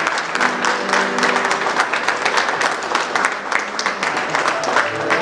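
Guests applauding with many clapping hands, over background music that comes up louder near the end.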